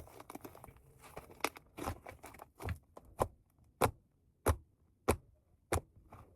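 Fluffy shaving-foam slime being squeezed and stretched by hand, giving a series of sharp crackling pops as trapped air bursts. In the second half the pops come evenly, about one every two-thirds of a second.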